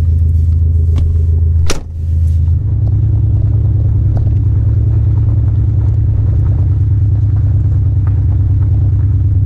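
Synthesized engine sound from an electric Porsche 911's Sport Active Sound speaker system: a loud, steady, low engine-like drone, a fake, futuristic engine noise. A short click with a brief dropout comes about two seconds in, and then the drone carries on at a slightly changed pitch.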